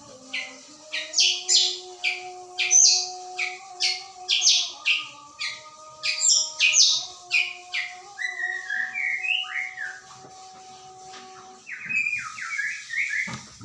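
White-rumped shama singing: a run of loud, sharp, repeated chirps, then lower warbling phrases about eight seconds in and again near the end.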